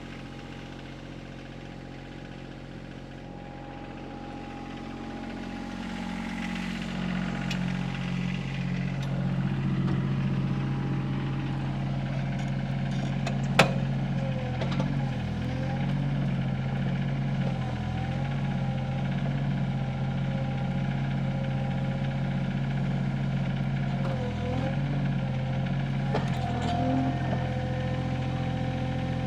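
Sany mini excavator's diesel engine running, rising from idle to working speed over a few seconds about five seconds in as it digs a post hole, with a hydraulic whine that wavers in pitch. A single sharp knock comes a little under halfway through.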